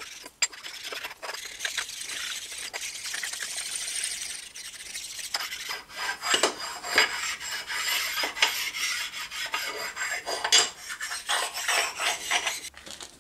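Abrasive bench stone rubbed in irregular back-and-forth strokes along the cast-iron bed ways of an Atlas 10F lathe, a scratchy rasping scrape that grows stronger about halfway through. The ways have been wiped free of oil, and the stoning dresses down rough spots the owner felt on them.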